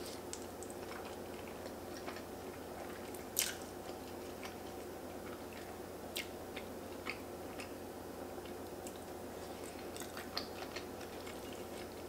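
A person chewing a mouthful of fettuccine with small mouth clicks and smacks scattered through it, and one louder smack about three and a half seconds in. A faint steady hum sits underneath.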